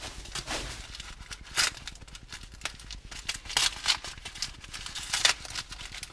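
Brown paper and masking tape crinkling and rustling in the hands as a taped parcel is unwrapped, with irregular sharp crackles and a few louder snaps.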